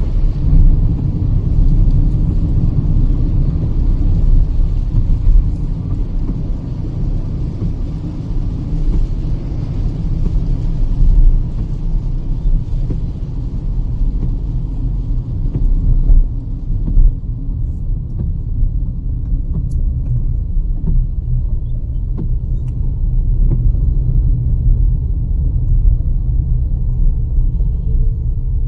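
Kia Seltos petrol car at highway speed: a steady low road and engine rumble, with a higher hiss of tyre and road noise that dies away a little past halfway.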